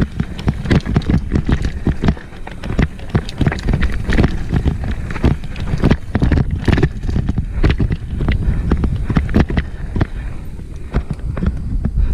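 Downhill mountain bike clattering and rattling over rough rocky ground, with many irregular knocks from the frame, chain and wheels, over a low rumble of wind on the microphone.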